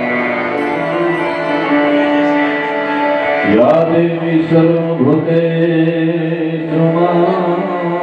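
Indian devotional music: long held singing and sustained instrument tones, with the voice swooping up in pitch twice about halfway through.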